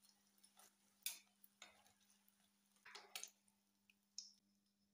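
Metal tongs clicking against a frying pan and wire strainer while fried spring rolls are lifted out of the oil: a few light, separate clacks, the loudest about a second in and a quick double clack past halfway.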